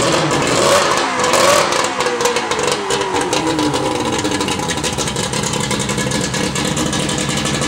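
Johnson outboard motor running, its revs falling back over the first few seconds and then settling into a steady idle.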